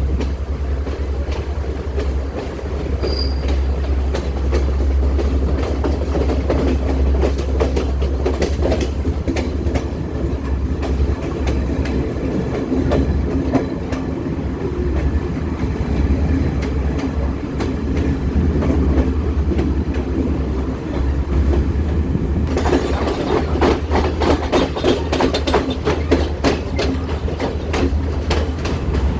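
Train running along the line: a steady low rumble with the clickety-clack of wheels over rail joints. About 22 seconds in, the sound suddenly turns brighter and the clatter sharper.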